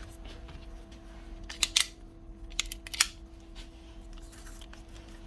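Sharp clicks and light taps of a gas nailer's parts being handled during servicing, the loudest in a cluster between about one and a half and three seconds in, over a steady faint hum.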